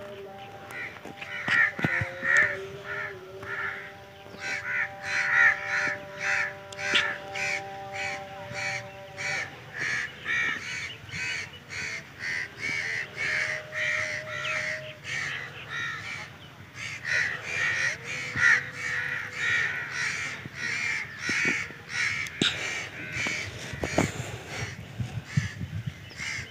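Crows cawing over and over, about two caws a second, without a break.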